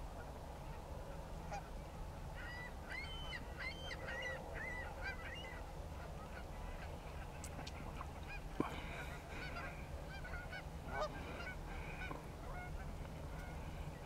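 Canada geese honking: a quick run of short calls from about two to five seconds in, then scattered, rougher honks through the second half. A sharp tap just past halfway is the loudest single sound.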